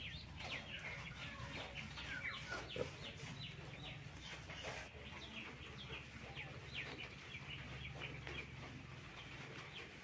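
Chickens clucking and chirping, many short high calls in quick succession, over a faint low steady hum.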